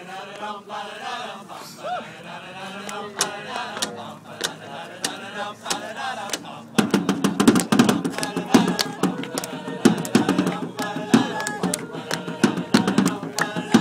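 Voices at first, then about seven seconds in a strummed guitar comes in loud and a choir starts singing with it.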